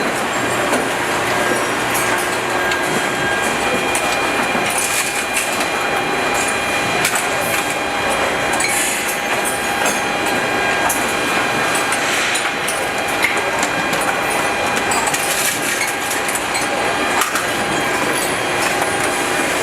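Factory machinery noise: a steady mechanical din with faint whining tones and frequent clanks and clicks.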